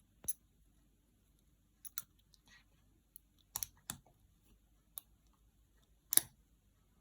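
Scattered light clicks and taps of small door-handle parts, a washer and return spring, being fitted onto the handle by hand. The loudest is a double click about six seconds in.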